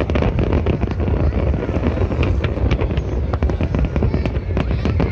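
Large aerial fireworks display: many shells bursting in rapid succession, sharp cracks and bangs packed closely over a continuous low rumble, without let-up.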